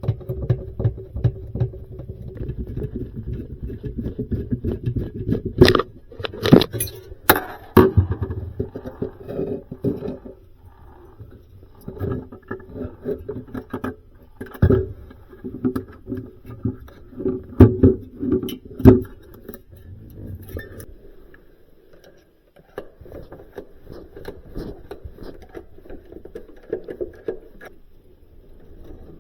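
Metal tools and parts being handled on a refrigerator under repair: scattered sharp clanks, clinks and scrapes, over a low steady hum that fades out about ten seconds in.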